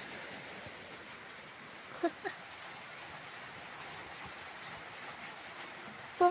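A steady faint hiss with two brief, chirp-like vocal sounds about two seconds in and another at the very end.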